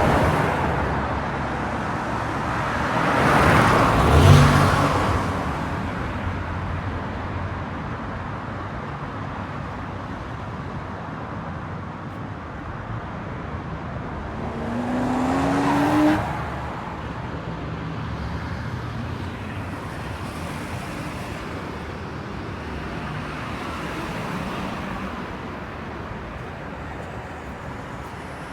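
Road traffic: a steady rush of cars driving past, with two louder vehicles passing about 4 seconds in and about 16 seconds in. The second one's engine rises in pitch as it accelerates, then cuts off suddenly.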